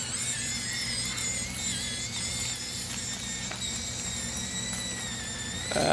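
The tiny brushless motor and geared drivetrain of an Axial SCX24 micro RC crawler give a steady high whine with a slight wobble as it crawls slowly over rocks, with a few faint clicks.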